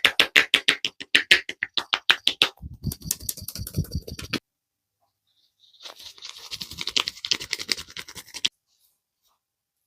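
Hand percussion head massage: steady slapping taps on the head at about five a second, then a quicker, denser run of patting that stops about four seconds in. After a short pause, about three seconds of fast scratchy rubbing of the hair and scalp.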